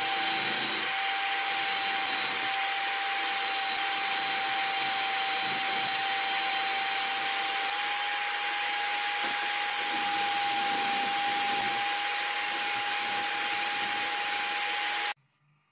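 Electric drill spinning a wire cup brush as brass air-compressor fittings and the pressure switch are held against it to clean them: a steady motor whine over a scratchy hiss of wire on metal. It cuts off suddenly near the end.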